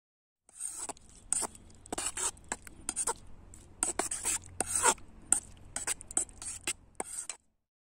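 Kitchen knife stirring and scraping through paneer cubes and spiced curd in a steel bowl, in a quick irregular run of short wet strokes. It starts about half a second in and cuts off abruptly near the end.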